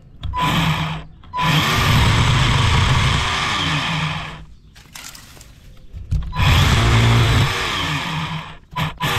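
Greenworks 24-volt cordless 10-inch electric chainsaw run in several bursts of one to three seconds, with short pauses between, cutting through small branches.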